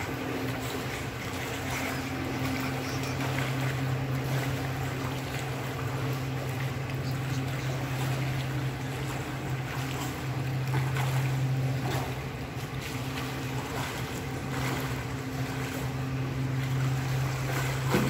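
Two swimmers splashing through the water of an indoor pool, over a steady low hum.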